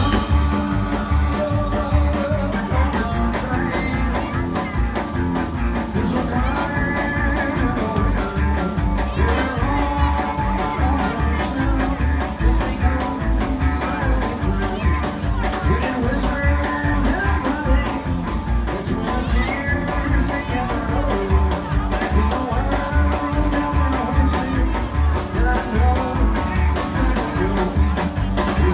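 Rockabilly band playing: electric guitar over a fast, driving beat of bass and drums.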